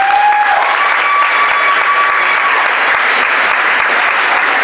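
Crowd applauding and cheering at ringside. A long held whoop rides over the clapping for the first two seconds or so.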